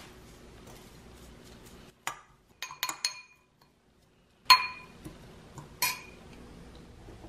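Stainless measuring spoon clinking against a small glass bowl while stirring chopped greens and sesame seeds: a series of sharp clinks, several in quick succession around the middle, the loudest one a little past halfway.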